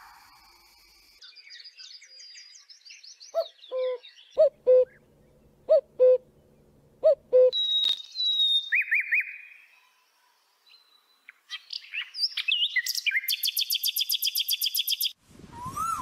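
A sequence of bird songs: first four pairs of low hooting notes, then a common nightingale singing whistles and trills that end in a long, fast run of repeated notes. Near the end an Asian koel starts its rising call.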